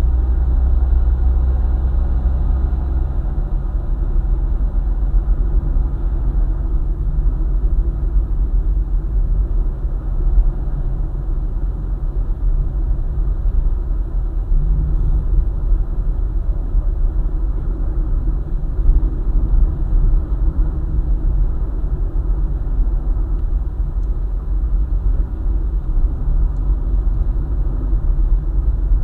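Car driving along a highway: a steady low rumble of engine and tyre noise.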